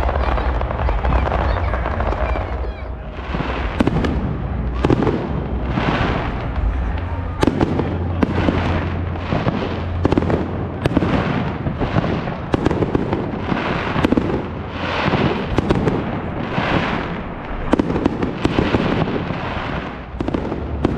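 Fireworks display: aerial shells bursting in quick succession, about one a second, with sharp bangs among them.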